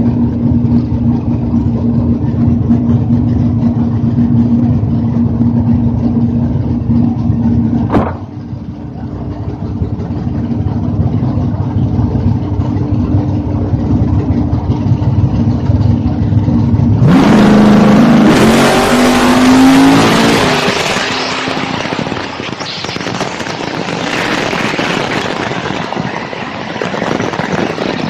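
Drag race car's engine idling with a steady note at the starting line, with a sharp click about a third of the way in after which the note drops off. Past the halfway point it launches: the revs climb hard, break at a gear change and climb again, then give way to a loud rush of engine and wind noise as the car runs down the strip.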